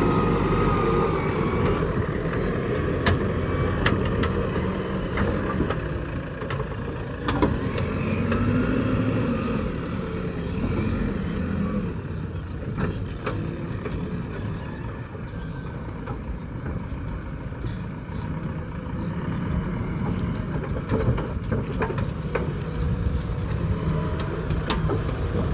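Diesel engine of a JCB 3DX backhoe loader running under working load, its pitch rising and falling a few times partway through, with scattered sharp knocks.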